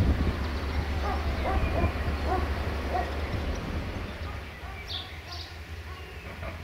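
Outdoor ambience: wind rumbling on the microphone, easing off about two-thirds of the way through, with short bird calls scattered throughout.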